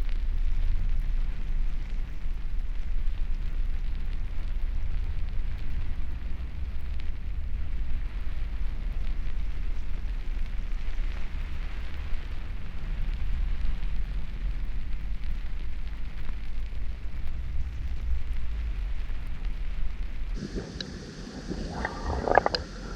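A mountain spring heard underwater through hydrophones: a steady low rumble with a fine crackle. Near the end it switches to a muffled underwater recording through a small action camera's microphone, with a few sharp knocks.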